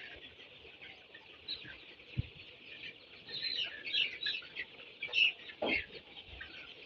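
A flock of young Sonali chickens peeping and calling, many short high chirps overlapping one another.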